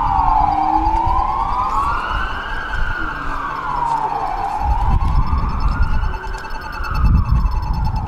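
Emergency vehicle siren wailing, its pitch slowly rising and falling about once every four seconds, over a low rumble that grows louder from about halfway through.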